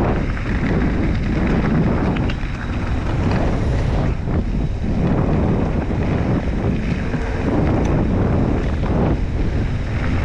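Wind rushing and buffeting against the camera microphone of a mountain biker on the move, loud and steady with swells every second or so.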